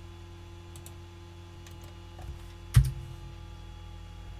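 A few soft computer keyboard keystrokes, with one much louder knock about three seconds in, over a steady low electrical hum.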